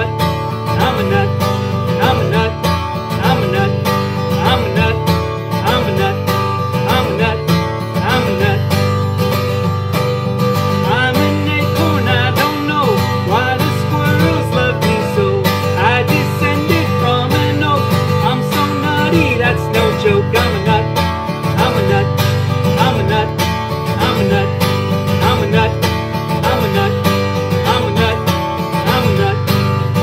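Acoustic guitar strummed steadily in an instrumental tune, with no singing.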